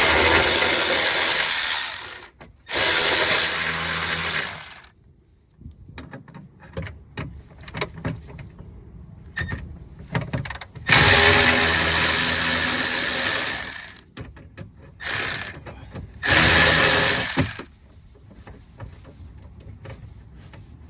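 Cordless power tool running in five short bursts of one to three seconds, spinning out the nuts and bolts that hold a window regulator and motor in a car door, with small clicks and knocks of handling between the runs.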